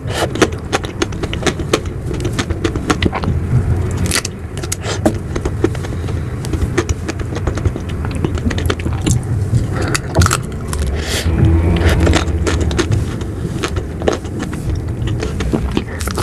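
Close-miked eating of ice cream: many quick, sharp mouth clicks and crackles over a steady low rumble.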